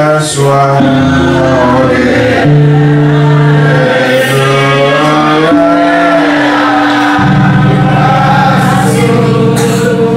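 Gospel singing over held accompaniment chords, the low notes changing every few seconds.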